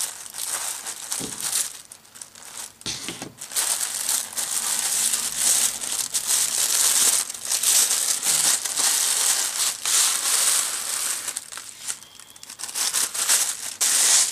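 Tissue paper crinkling and rustling as hands fold and wrap it around a gift, in uneven spells with short lulls about 2 seconds in and again near the end.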